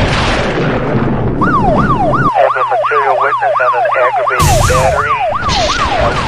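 Intro sound effect: a siren in a fast yelp, each sweep falling in pitch, about three a second, starting about a second and a half in. Under it a loud rushing whoosh fades in the first two seconds and comes back in a burst about four and a half seconds in.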